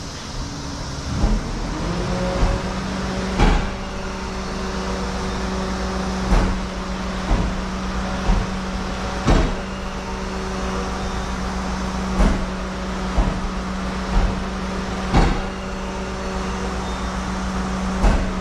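A tractor-trailer rig unloading runs with a steady hum that comes in about a second and a half in and holds. Over it come sharp knocks at irregular intervals of one to three seconds.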